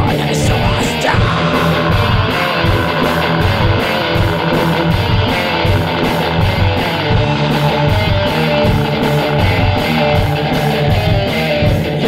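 Heavy metal band playing: electric guitars and drums with a steady, fast beat.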